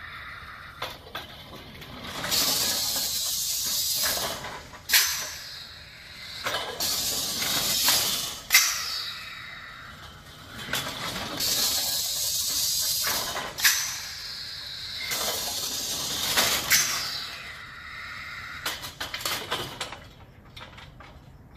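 Compressed air hissing from a pneumatic cylinder and its valve in repeated bursts of about two seconds each, with sharp clacks at some of the strokes, as the cylinder drives a large steel sculpture's arm up and down. Near the end come a few quick short spurts, then the hissing stops.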